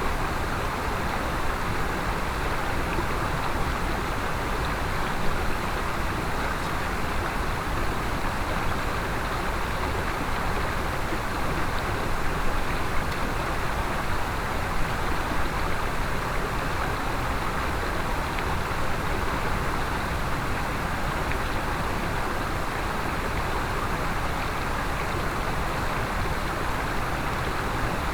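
Mountain stream water rushing steadily over rocks, with a few faint knocks above it.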